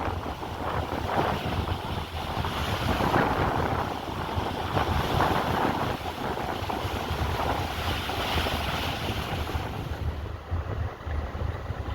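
Wind buffeting the microphone in gusts, over a steady low rumble.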